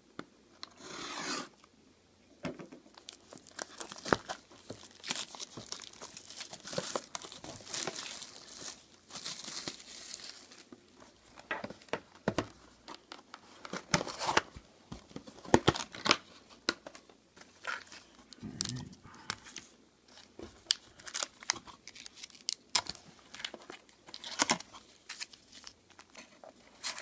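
Plastic shrink wrap on a cardboard trading-card box being slit with a blade, torn off and crumpled, giving a long run of crinkling and tearing in the first half. After that come sharp separate crackles and taps as the box is opened and the foil card packs are handled.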